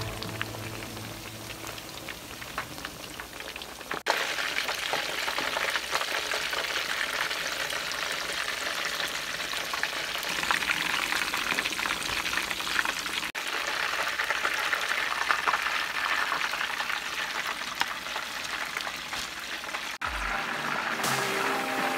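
Chicken chapli kababs shallow-frying in hot oil on a medium-high flame, a steady sizzle that grows louder about four seconds in.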